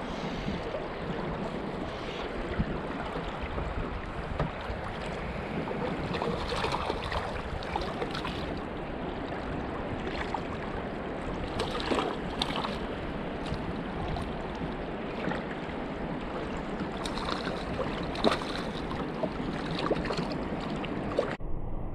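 Water lapping and splashing against a drifting kayak, with wind on the microphone. A few sharper splashes about halfway through and near the end.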